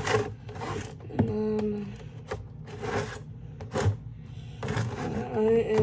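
Plastic-windowed cardboard toy packaging being handled and worked open: crinkling plastic and sharp clicks, with a couple of brief squeaks.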